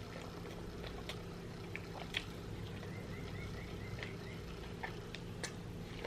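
Close-up mouth sounds of eating a saucy smoked turkey leg: wet chewing, lip smacks and small clicks at irregular moments over a steady low hum.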